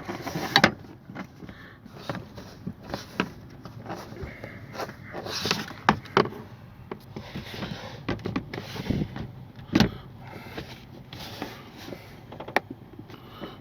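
Plastic car interior trim panel being handled and pushed into place: scattered clicks, knocks and rubbing, with a sharper knock near the start and another about ten seconds in.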